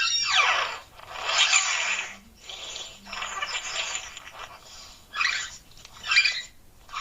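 Sound-effect calls of the Great Blue Windrunner, a fictional bird-descended creature: a high cry that falls in pitch at the start, then longer raspy, warbling cries, and two short chattering calls near the end.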